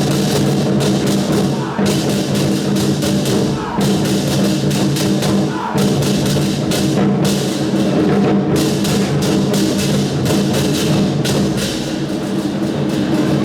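Loud procession music: drums and other percussion struck in a fast, dense rhythm over steady held pitched tones.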